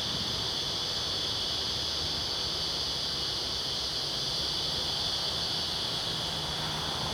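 Steady, high-pitched drone of an outdoor insect chorus, with a faint low hum of honeybees at the open hive beneath it.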